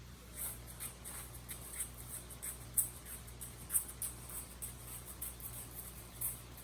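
Irregular scratchy rustling and clicking, with a few sharper ticks, over a faint low steady hum.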